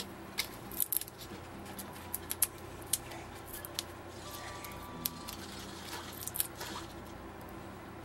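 Scattered light clicks and rustles of hands handling paper: adhesive foam pop dots being peeled from their backing sheet and pressed onto a cardstock cutout.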